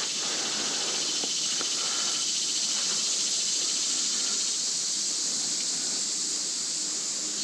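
Steady rushing hiss of creek water running over shallows, close to the microphone.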